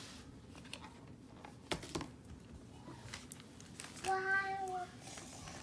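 Light clicks and rustles of packaging and cable being handled as accessories are unwrapped. About four seconds in, a child's voice holds a short sung note.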